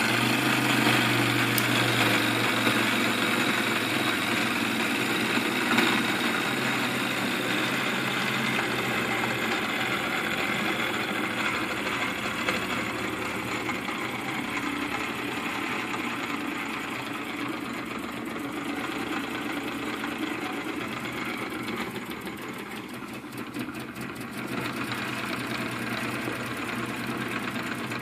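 Small plastic toy twin-cylinder V steam engine running fast, with a rapid, even mechanical clatter from its cylinders and crank.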